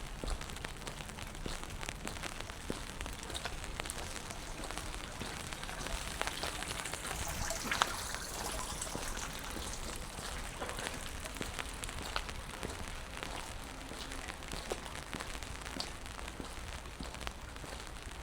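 Rain falling on wet pavement: a steady hiss with many small drop ticks. The hiss swells about halfway through, with one sharp tap at its loudest.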